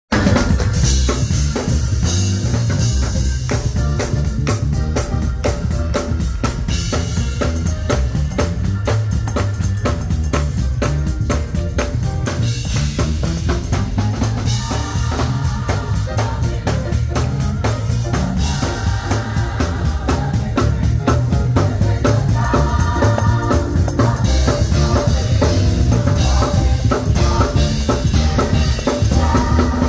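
Live band music driven by a drum kit keeping a fast, steady beat over heavy bass, with pitched instruments joining in partway through.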